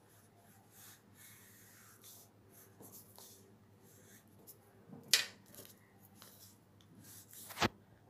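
Crayon scratching on paper in short drawing strokes, faint, with two sharp taps, one about five seconds in and one near the end.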